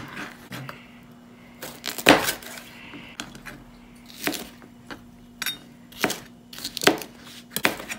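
Kitchen knife slicing through bell peppers and knocking on a plastic cutting board: about eight separate, irregular knocks, the loudest about two seconds in.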